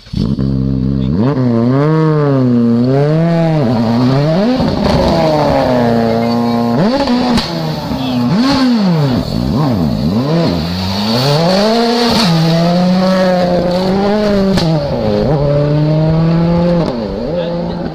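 Rally car engine revving hard, its pitch swinging up and down over and over as the car is driven off on gravel.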